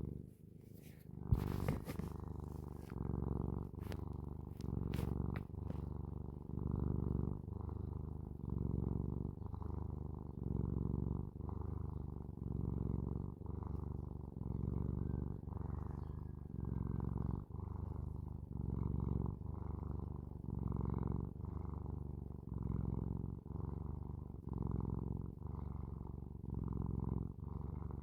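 Domestic cat purring continuously, the purr turning louder and softer in an even rhythm about once a second as the cat breathes in and out. A few sharp clicks come in the first few seconds.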